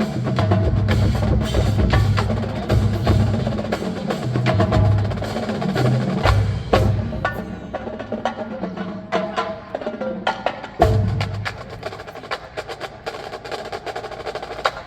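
Marching band playing, led by its percussion section with rapid sharp strikes and drums over a heavy bass line. About halfway through the bass largely drops out, leaving mostly percussion hits.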